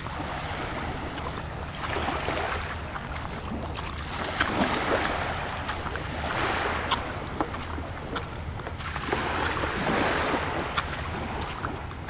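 Small waves washing up on a beach, swelling and falling back every two or three seconds, over a steady low engine hum, with a few light ticks.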